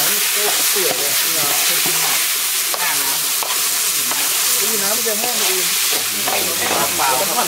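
Minced chicken larb sizzling as it is dry-fried in a steel wok, with a metal spatula scraping and turning it.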